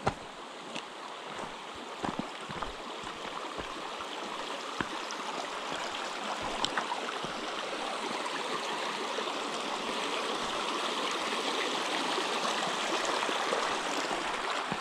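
Shallow mountain stream running over stones: a steady rush of water that grows gradually louder, with a few scattered footstep crunches on loose stones.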